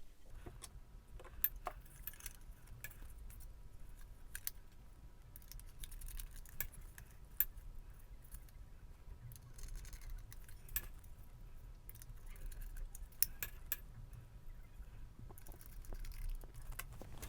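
Scattered light clicks and clinks of an SSD being handled and pushed into a netbook's hard-drive bay mounts, which were made for a thicker mechanical disk, so the SSD does not sit in them readily.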